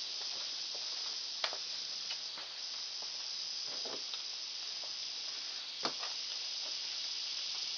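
Steady high-pitched hiss of outdoor background noise, with a few faint light clicks about one and a half, four and six seconds in. No shots are fired.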